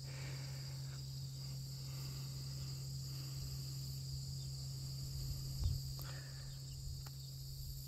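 Steady chorus of crickets and other insects, with a low steady hum underneath.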